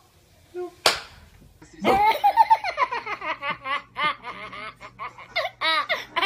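A sharp click about a second in, then a baby belly-laughing in rapid high-pitched bursts.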